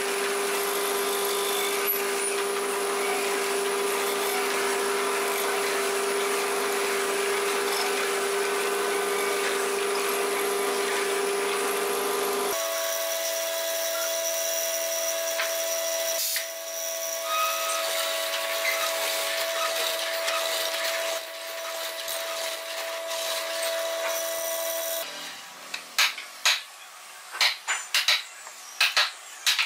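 A woodworking boring machine runs steadily with a held tone as its bit cuts into a wooden block, the pitch changing partway through. Near the end, a hammer strikes a wood chisel in sharp blows, about two a second.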